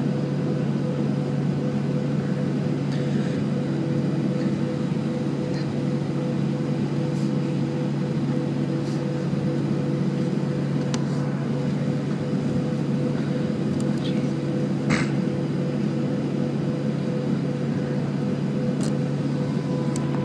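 Steady droning hum inside the cabin of a Boeing 737 taxiing on idle engine power, with a few faint clicks and one brief sharper knock about three quarters of the way through.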